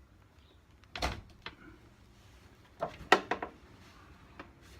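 A few sharp clicks and knocks from handling a Henry vacuum cleaner as it is plugged in and tried, with a cluster of them about three seconds in. No motor is running.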